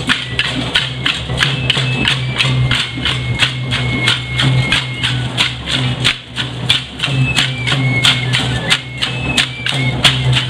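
Dance troupe's procession music: a drum and rattling percussion beating a steady fast rhythm, about three to four strokes a second, under a high thin melody line.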